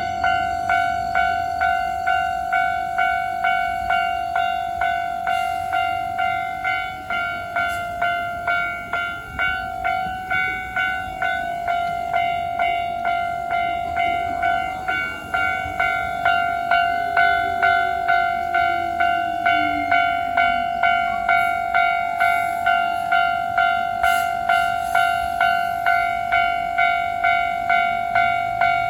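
Japanese level-crossing warning bell ringing in a steady, fast repeating ding, about one and a half strikes a second, while a train passes on the line. A little past the middle, a falling whine comes from the train.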